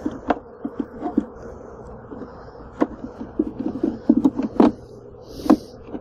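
Wooden hive frames knocking and clicking as they are handled and set into a polystyrene beehive, many short knocks, the loudest near the end. Under them runs a steady hum of honeybees.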